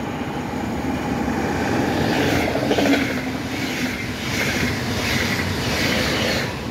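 Double-deck electric passenger train passing close by on the nearest track. Its rumble builds over the first two seconds into a rhythmic clatter of wheels over the rails, about twice a second.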